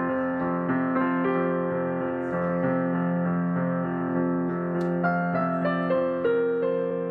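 Gentle piano music with held, overlapping notes; new notes come in more often in the second half.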